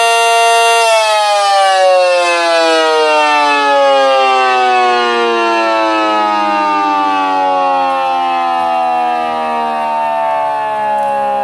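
Miniature ACA Cyclone 125 siren holding a steady tone for about a second, then winding down, its pitch falling slowly and evenly at the end of an alert blast.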